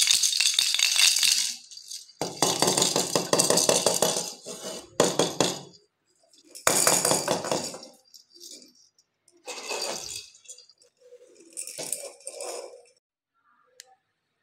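Plastic baby rattles shaken in about six short bursts, the later bursts quieter.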